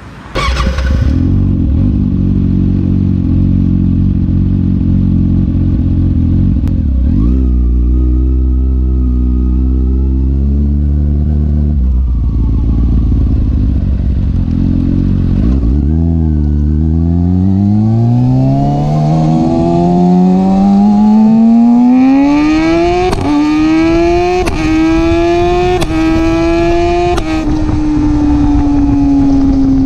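Kawasaki ZX-6R inline-four, tuned on E85 and breathing through an M4 exhaust with de-catted baffles, heard right at the exhaust outlet. It idles with a short throttle blip, then pulls away and accelerates hard, the note rising through several quick upshifts before it eases off.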